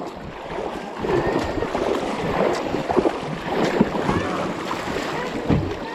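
Water of small river rapids rushing and splashing around a kayak, with a few sharp splashes or knocks scattered through it.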